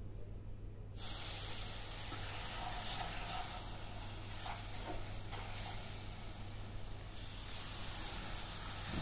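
Steady hiss over a low electrical hum, starting abruptly about a second in, with a few faint scrapes of a spatula stirring milk powder and sugar in a pan.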